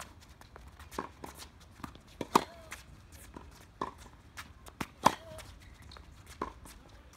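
Tennis ball struck by a racquet in a steady groundstroke rally: two sharp, loud hits about 2.7 s apart, each followed by a brief ring. Fainter ball knocks fall about halfway between them.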